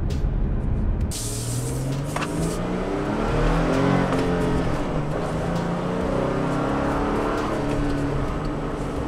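A Toyota Tacoma pickup's engine, heard from inside the cab through the Aukey DR02 dash cam's built-in microphone, as the truck accelerates from about 15 to 37 mph; the engine note climbs in pitch in steps.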